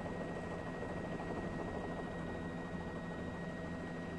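Steady helicopter cabin noise, engine and rotor drone with a thin steady whine, heard through the news helicopter's open microphone link.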